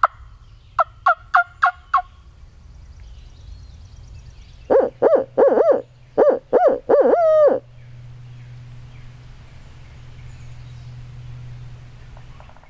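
Barred owl hooting, blown by a turkey hunter as an owl locator call to make a gobbler shock-gobble: five short hoots, then a louder run of hoots ending in one long falling note.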